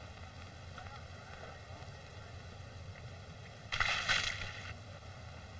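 A splash of paint, about a second long, about two-thirds of the way in, as a bucket of paint comes down over a man. It sits over the steady hiss and hum of an old optical film soundtrack.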